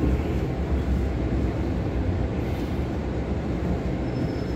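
Metro-Cammell electric multiple-unit train (MTR M-Train) heard from inside the car, a steady low running noise of wheels and motors as it pulls into a station platform.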